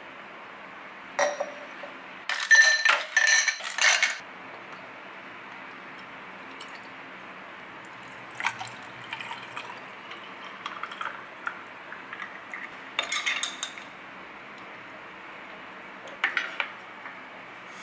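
Clinking of glass and ice, then a drink poured over ice cubes in a glass, with a rising tone as the glass fills. A few more clinks of a glass and dishes being set down on a table follow.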